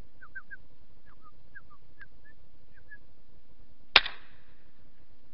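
A few short bird chirps, then a semi-automatic shotgun fires a single loud shot about four seconds in.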